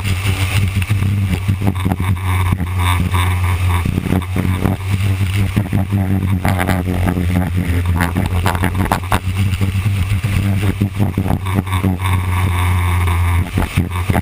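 Small winged sprint-style race car heard onboard at racing speed on a dirt oval: its engine running hard under load, with rough wind buffeting on the camera.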